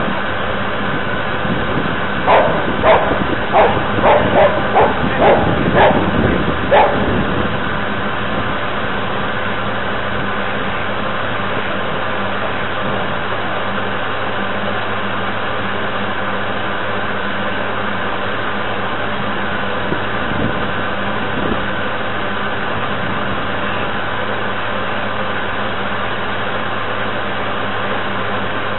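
Drive motor and paddle gear of a model paddle tug running with a steady hum, picked up by the camera on board. A dog barks about ten times in quick succession in the first seven seconds.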